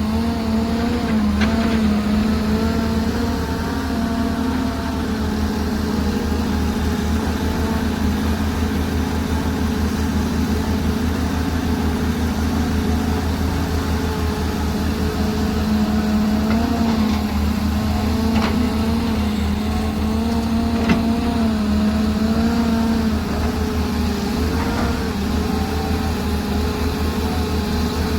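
Heavy diesel engine of an excavator running steadily under load, its pitch dipping and rising slightly as the load changes. A few brief knocks sound over it.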